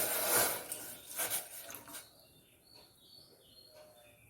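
Milk being poured into a pot of boiling masala tea: a rushing liquid splash for about two seconds. After it, a few faint high bird chirps.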